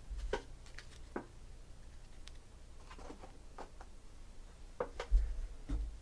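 Trading cards being handled and set down on a table: scattered soft clicks and taps, with a few low thumps near the start and near the end.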